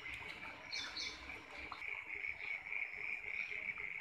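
A steady, high-pitched chorus of calling animals, with a couple of short higher chirps about a second in.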